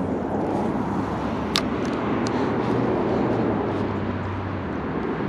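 Steady low engine rumble over outdoor noise, fading out near the end, with a single sharp click about one and a half seconds in.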